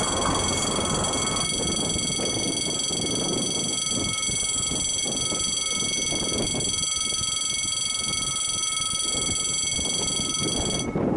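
Level-crossing warning bell sounding a steady, unbroken ringing tone, which cuts off suddenly near the end. The ringing signals that a train is approaching.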